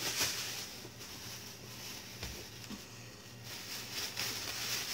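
Faint handling sounds: a head of lettuce in a plastic bag rustling, louder near the end, with a soft knock about two seconds in, over a low steady hum.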